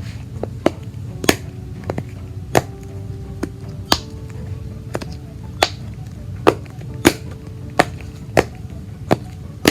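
Homemade pop-it style fidget toy being pressed again and again: a string of sharp, irregular pops, roughly one a second. Background music plays under it.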